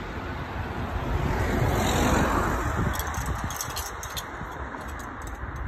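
A road vehicle passing by, its noise swelling to a peak about two seconds in and then fading, over a constant low rumble. Light high-pitched ticks follow in the second half.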